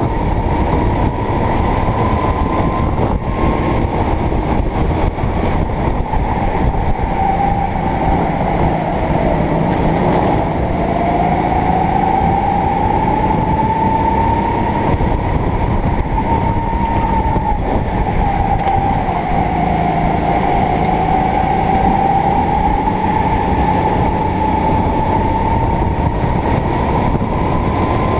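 Onboard sound of a Sodi kart's engine running hard at racing speed, its pitch dipping twice as it slows for corners and climbing again as it accelerates out.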